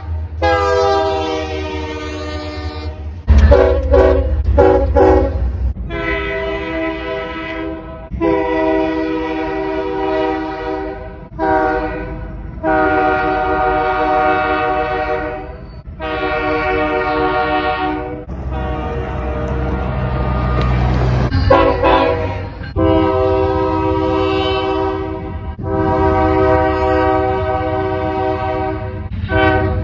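Locomotive air horn sounding a series of blasts over a low rumble. The blasts come mostly long with a short one between, twice in the long-long-short-long pattern of a grade-crossing warning, then begin again near the end.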